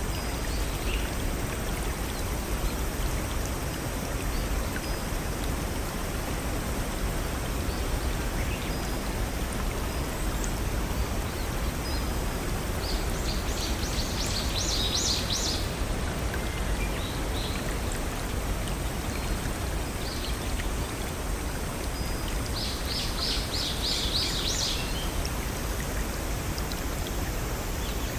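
A small brook with little waterfalls running steadily. A bird sings a quick trill of rapid high notes twice, about halfway through and again near the end.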